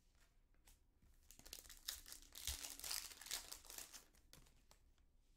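Foil wrapper of a Topps Chrome baseball card pack being torn open and crinkled by hand. The crinkling starts about a second and a half in and lasts a couple of seconds.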